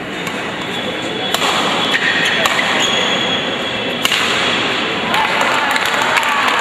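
Badminton rally: sharp cracks of rackets striking the shuttlecock, roughly every second or so, with shoes squeaking and stepping on the court floor. Voices of spectators chatter throughout.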